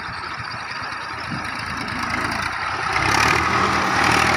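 Massey Ferguson tractor's diesel engine running as the tractor drives over loose dirt, growing louder about three seconds in as it climbs onto a dirt mound.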